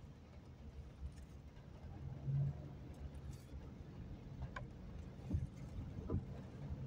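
Steady low rumble of a car moving slowly in traffic, heard from inside the cabin, with a few faint clicks between about four and six seconds in.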